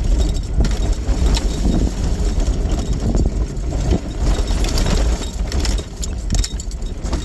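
Off-road vehicle driving over a rough dirt trail: a steady low engine rumble with frequent rattles and knocks from the bouncing vehicle.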